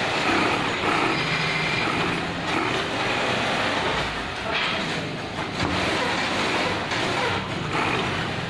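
Xingchi heavy-duty cylinder-bed industrial sewing machine stitching thick bag material, its motor and needle running in stretches that stop and start, over steady workshop noise.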